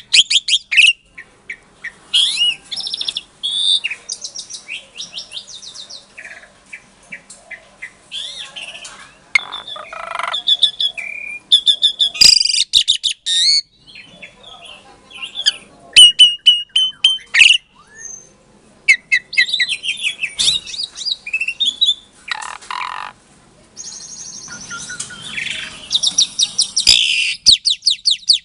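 Javan pied starling (jalak suren) singing: a long run of varied phrases, with clear whistles, fast rattling trills and harsh chattering notes, broken by short pauses.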